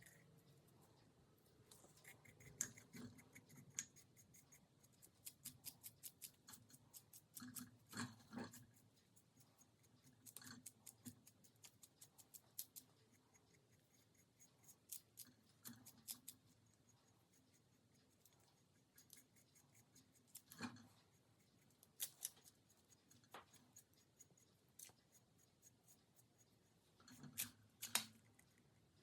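Quiet crafting handwork: runs of small, crisp snips and clicks in quick series, with a few louder taps around the middle and near the end.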